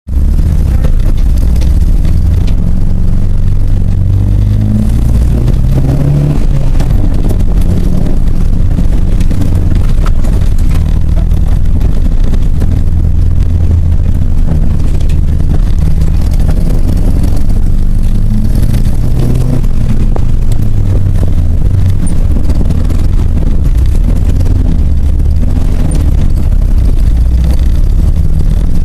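Old car engine running loud and rough, its pitch rising and falling a few times as it revs: a misfiring engine.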